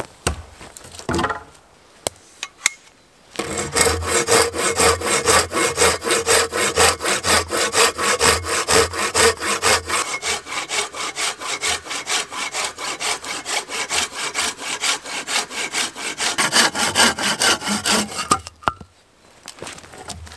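A hand saw cutting through a wooden branch in quick, even back-and-forth strokes, about three to four a second. The sawing starts about three seconds in and stops shortly before the end, after a few light knocks at the start.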